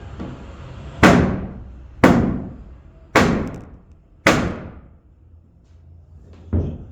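Four heavy hammer blows about a second apart, pounding a tight-fitting floor piece down into place, then one lighter blow near the end.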